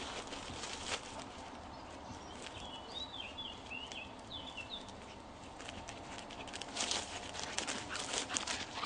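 Rustling and crackling of movement through field vegetation, thick at first, easing off in the middle and picking up again in the second half. Around the middle a bird gives a short series of high chirps.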